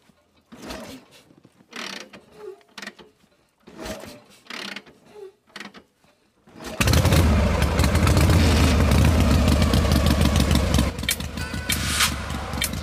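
A few short bursts of noise, then about seven seconds in an engine starts suddenly and runs steadily with a low rumble, easing a little near the end.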